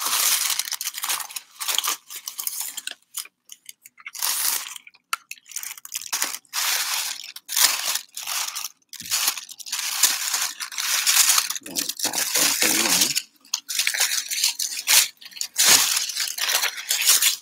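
Tissue paper and packaging being unwrapped by hand: irregular crinkling and rustling in quick bursts with brief pauses.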